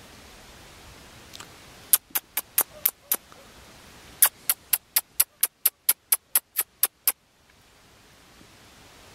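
Two runs of sharp, evenly spaced clicks, about four a second: about six, a short pause, then about a dozen more, over a faint steady hiss.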